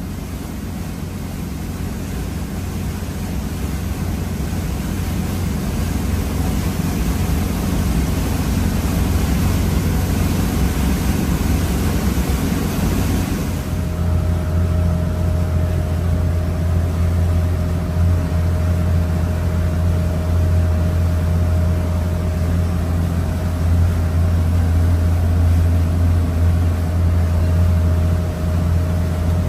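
Fleming motor yacht's diesel engines running steadily underway, a continuous low drone heard from inside the helm station, with a hiss of wind and water over the first half. About fourteen seconds in the sound changes abruptly: the drone grows fuller and a steady whine joins it.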